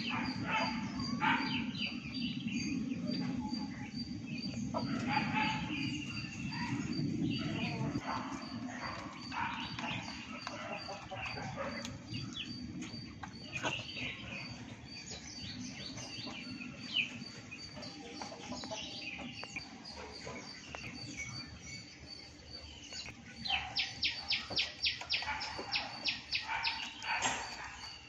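Assorted bird chirps and calls, short and scattered, with a quick run of about ten sharp repeated calls, roughly four a second, near the end.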